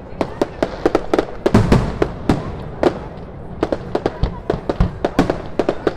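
Public fireworks display going off in a rapid, irregular string of sharp bangs and deeper booms, several a second, thinning out briefly around the middle before picking up again.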